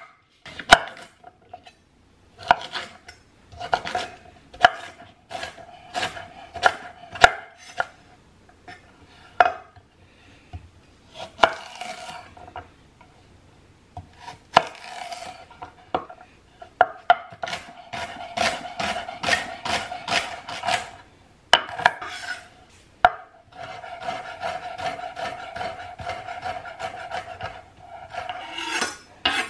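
Chef's knife chopping carrot and celery on a wooden cutting board: runs of quick knife strikes against the board, with short pauses between them.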